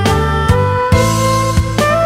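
Instrumental background music: held melody notes over a steady bass line, with new notes striking in every half second or so.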